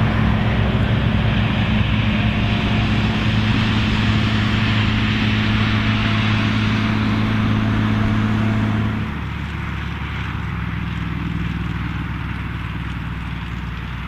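John Deere 3650 tractor's six-cylinder diesel engine running steadily under load while pulling a plough through wet soil. About nine seconds in, the sound drops abruptly and the engine note settles lower and quieter.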